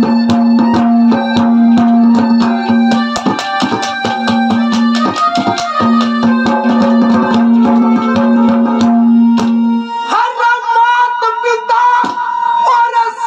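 Instrumental interlude of Haryanvi ragni accompaniment: fast hand-drum strokes over a harmonium melody with a steady held drone note. About ten seconds in the drone drops away and a man's voice comes in singing.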